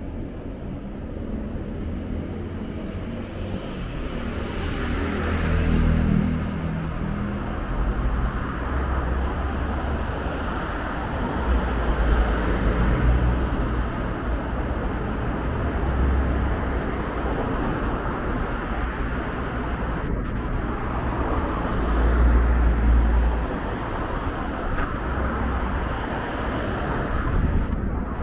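City street ambience dominated by road traffic noise, with a deep rumble that swells and fades every few seconds.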